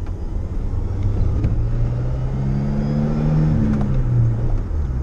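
Pickup truck's engine heard from inside the cab, a low rumble with a pitched drone that rises as the truck accelerates and then drops back near the end.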